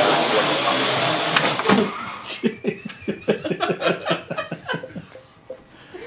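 Parrot AR.Drone quadcopter's four rotors whirring with a loud hiss, a couple of knocks, then the motors cut off suddenly about two seconds in. A person then laughs in quick bursts for about three seconds.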